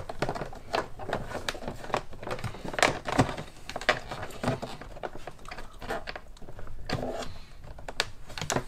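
Irregular clicks, taps and rustles of hands handling a car door panel's plastic trim while tucking LED light-strip wiring around the speaker.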